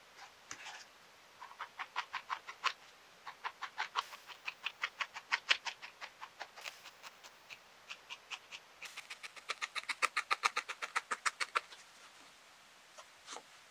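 Barbed felting needle stabbing wool into a foam pad: quick, regular pokes, about five to seven a second, in two long runs with a short lull between them.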